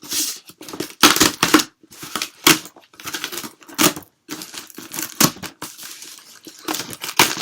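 A box being opened by hand, with its packaging torn and crinkled in a quick, irregular run of rips and rustles.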